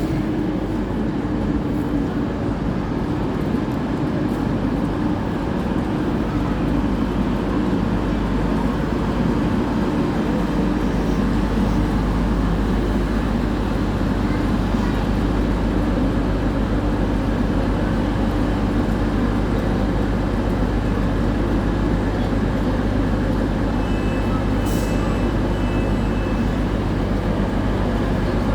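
A train running steadily at a railway station, a constant heavy engine rumble with a steady hum, with a few short high beeps near the end.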